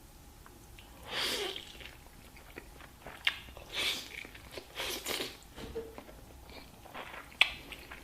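A person biting and chewing food close to the microphone: several separate bites and chews spread over the few seconds, with a sharp click near the end.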